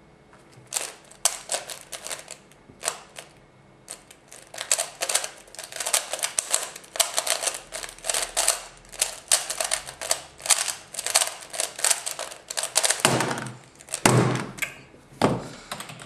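Rapid, irregular clicking and clacking of an F-II speedcube being turned at speed through a solve of about ten seconds, followed near the end by a few heavier thumps.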